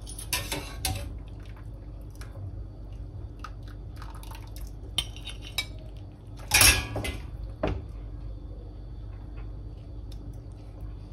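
Wire spider strainer and utensils clinking against steel pots and a ceramic plate as drained penne is lifted out and served, with scattered light clinks and one louder clatter about six and a half seconds in as the pasta is tipped onto the plate.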